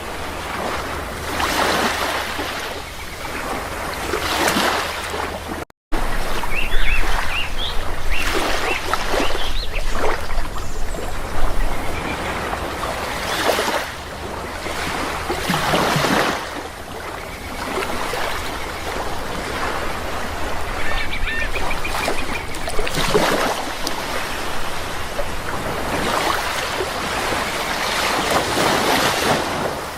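Sea waves washing in and out in repeated surges, with birds calling in short squawks and chirps at times. The sound drops out briefly about six seconds in.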